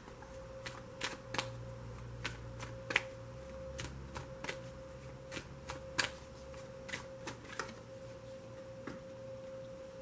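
A deck of oracle cards being shuffled in the hands: irregular light clicks and snaps of card edges, over a faint steady electrical tone.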